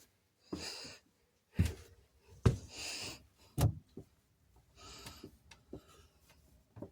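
Handling noise: three soft thumps or knocks, about a second apart, between short rustling, breathy bursts.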